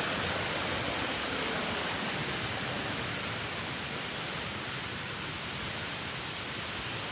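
Steady rush of a large waterfall, an even, unbroken roar of falling water.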